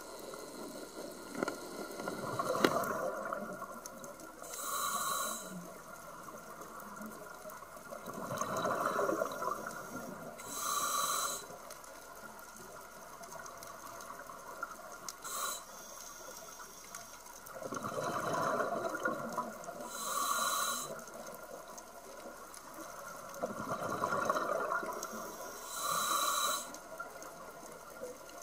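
Scuba diver breathing through a regulator underwater, four times: each breath is a drawn hiss on the inhale, followed about two seconds later by a short gush of exhaled bubbles.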